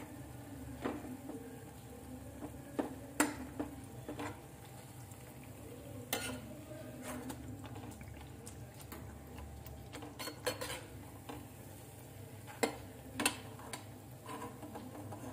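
Malpua frying in ghee with a soft, steady sizzle, while a perforated steel skimmer clinks against the pan about ten times as it spoons the hot ghee over, turns the malpua and lifts it out.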